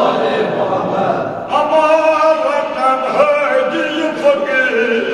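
Kashmiri marsiya, a Shia mourning elegy, chanted: several voices sing together at first, then from about a second and a half in a single man sings a line alone in long, bending notes.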